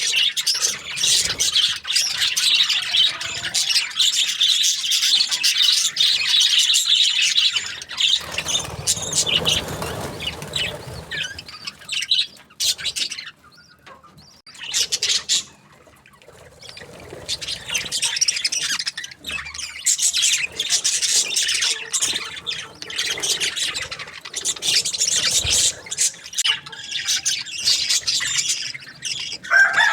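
A flock of budgerigars chirping and chattering without a break, dropping to a brief lull about halfway through before picking up again.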